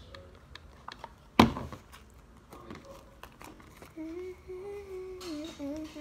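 A single sharp knock about a second and a half in, with scattered small clicks, then a person humming a simple tune from about four seconds in, holding each note.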